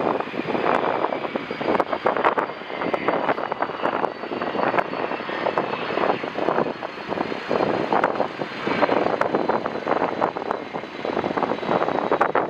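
Jet airliner engines with a high whine that slowly falls in pitch, under loud gusty wind buffeting the microphone.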